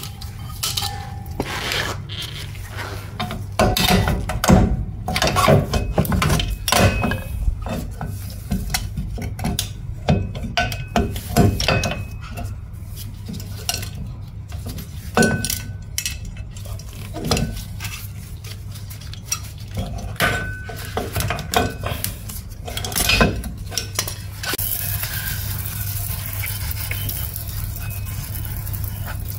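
Metal clinks and clanks of drum-brake shoes, return springs and hold-down fittings being worked off a rear brake backing plate. About 25 seconds in, a steady spray hiss begins as the bare backing plate is sprayed clean with an aerosol.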